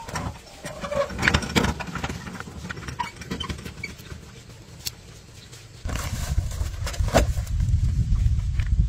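Metal wheelbarrow rattling and clanking as it is handled and rolled over rough ground, with a louder rough rumble from about six seconds in.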